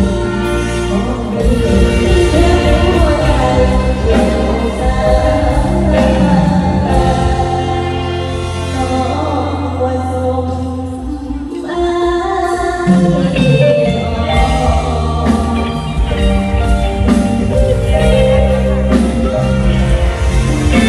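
A woman singing a song live through a PA system over an amplified band backing with a steady bass line; the backing thins out briefly about ten seconds in and then comes back in full.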